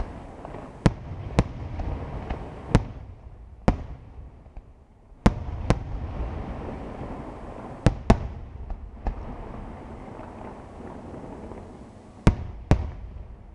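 Aerial firework shells bursting overhead: about ten sharp bangs, several in quick pairs, over a continuous low rumble and crackle.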